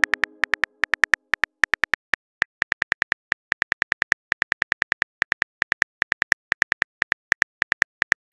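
Phone-keyboard typing sound effect: rapid, irregular short clicks, one per letter, as a text message is typed out. The faint tail of a chime fades away at the very start.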